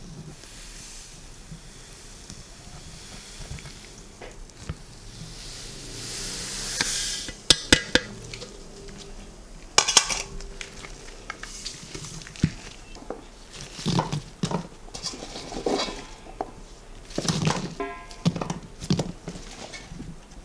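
Kitchen handling sounds while green plum syrup is made: dishes and utensils clinking and knocking. A rushing hiss builds about six seconds in and ends in a few sharp clinks, followed by a run of irregular knocks and rustles.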